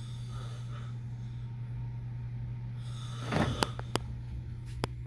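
Snoring over a steady low hum, with one louder noisy breath about three and a half seconds in, followed by a few sharp clicks.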